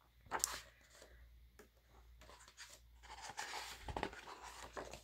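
Pages of a photobook album being turned by hand: a short paper swish about half a second in, soft rustling, then a longer stretch of paper rustle in the second half with a soft low thump about four seconds in.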